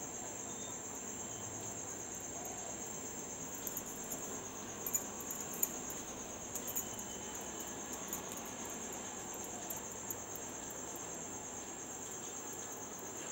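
Steady high-pitched chirring of insects, with a few faint, short clicks and taps in the middle as hands press a stuffed ball of dough flat.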